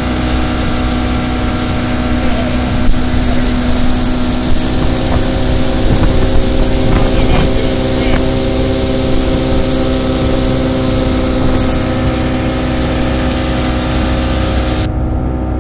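Towing motorboat's engine running steadily at speed, heard from aboard, under a constant rush of wind and water. The high hiss drops away suddenly near the end.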